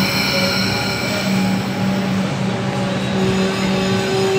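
Comeng electric suburban train braking to a stop at an underground platform. A high-pitched squeal fades away over the first two seconds over a steady low hum, and a fresh tone comes in about three seconds in as the train halts.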